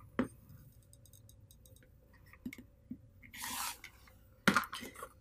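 Rotary cutter run along an acrylic ruler, slicing through a sewn fabric unit on a cutting mat in one short hissing stroke of about half a second, with light taps and a few sharp clicks of the ruler and cutter being handled, the loudest near the end.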